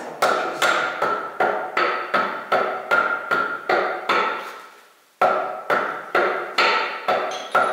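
A hammer striking a cylinder liner in a Belarus 820 tractor engine block, tapping it down onto its rubber sealing rings. The metallic strikes ring, come about two to three a second, stop for about a second midway, then resume.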